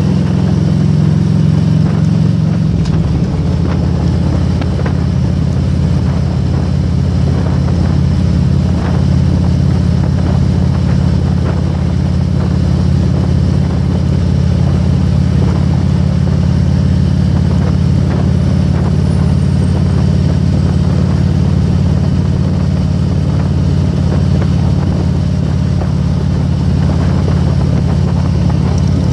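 Harley-Davidson Road King V-twin engine and exhaust running steadily at cruising speed, heard from on the bike over wind noise. The engine note changes about two and a half seconds in.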